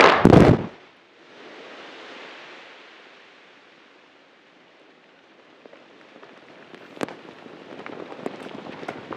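Quarry rock blast: two loud bangs in the first second, followed by a rushing noise that fades over a few seconds. From about halfway on, a growing patter of small rock fragments and grit landing, with one sharp click.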